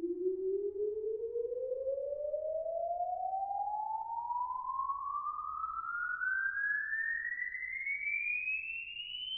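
Exponential sine sweep test tone played through a Genelec 1037 studio monitor: a single pure tone gliding smoothly and steadily upward in pitch, from a low hum to a high whistle. It is the measurement signal used to capture the impulse response of the room.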